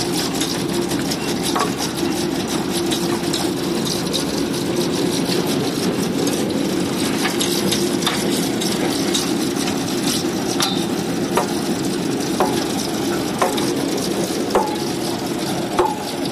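Rotary borewell drilling rig running: a steady machine drone with constant rattling and clicking. About two-thirds in, a sharp knock starts coming roughly once a second.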